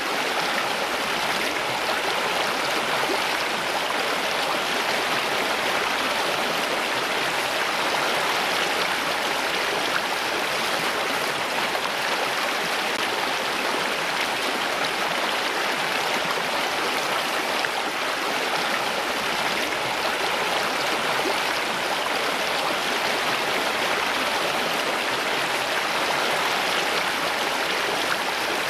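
Running water in a steady, even rush that never changes in strength.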